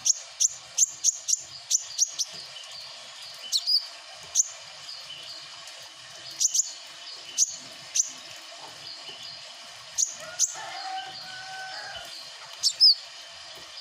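A small bird, called manggaran in Sundanese, chirping in short, sharp, high notes. A quick run of chirps comes in the first two seconds, then single chirps spaced out, with a couple of fast sweeping notes.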